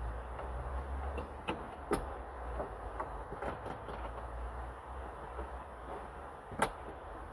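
Hard plastic dashboard trim being handled and fitted during reassembly: a few sharp clicks and knocks, the loudest near the end, over a low steady hum.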